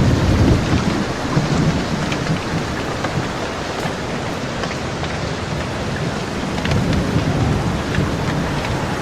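Steady rain with scattered drop ticks, and low rolling thunder that swells in the first couple of seconds and rumbles again near the end.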